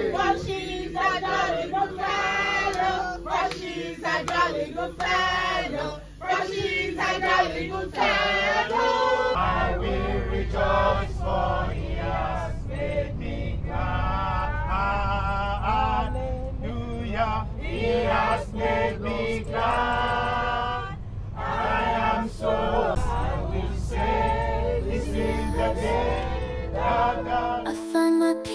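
Several voices singing together, like a choir. About nine seconds in, a low steady hum joins underneath, and right at the end the singing gives way to other music.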